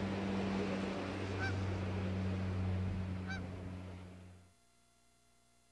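Shoreline ambience: a steady rushing wash with a low hum underneath, and two short bird calls, about a second and a half and three seconds in. The whole fades out about three-quarters of the way through.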